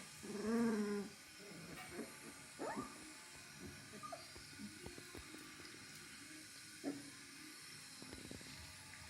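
Three-week-old Bernedoodle puppies whining and squeaking: one loud whine near the start, a short rising squeak a few seconds in, a brief call near the end, with soft clicks in between.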